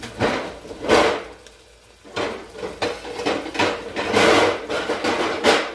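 Pots, pans and lids clattering as they are rummaged through in search of a lid: an irregular string of about seven loud clanks and rattles.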